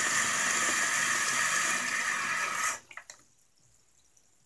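Bathroom faucet running into a sink already full of water, a steady rushing splash that is shut off abruptly a little under three seconds in. A few faint drips follow.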